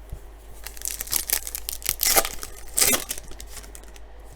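A baseball card pack's wrapper being torn open and crinkled: a run of short rustling tears starting a little under a second in, loudest around the two- and three-second marks.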